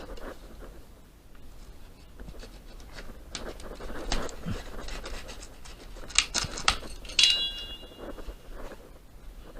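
Irregular scraping, tapping and knocking from tools and building materials being handled during wall-sheathing work. About seven seconds in there is a sharp metallic clink that rings briefly.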